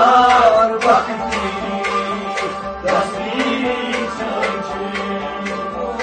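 Devotional song (kalam) with a male singer's voice over a steady drone and regular hand-drum strokes, the voice strongest about a second in and again around the middle.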